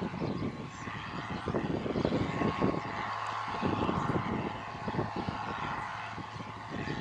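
John Deere 4650 tractor's six-cylinder diesel engine running steadily while pulling a planter, a constant drone with a steady tone, overlaid by irregular low buffeting rumble.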